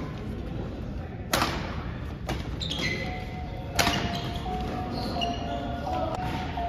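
Badminton rally in a gymnasium: two sharp racket strikes on the shuttlecock, about a second and a half in and again near four seconds in, echoing in the hall, with short squeaks of sneakers on the court floor between them.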